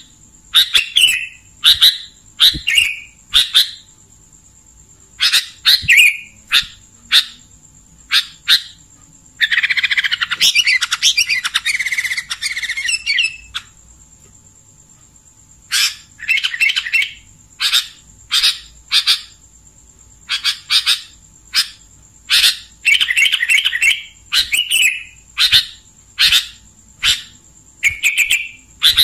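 Sooty-headed bulbul (kutilang) calling: a run of short, sharp repeated notes, broken by a long buzzy chatter from about ten to thirteen seconds in and shorter chatters later.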